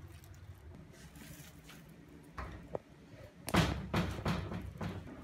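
Pieces of marinated pork dropped into a rice cooker's inner pot: a run of four or five dull thuds, the loudest about three and a half seconds in, after a couple of softer sounds.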